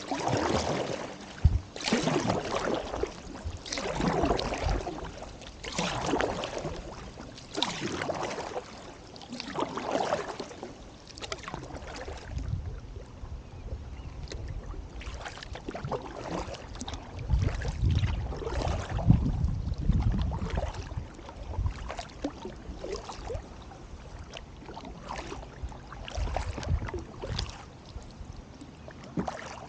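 Double-bladed kayak paddle strokes, the blades dipping and pulling through calm water with a splash about every one to two seconds, stronger in the first part and lighter later. A low rumble comes in for a few seconds past the middle.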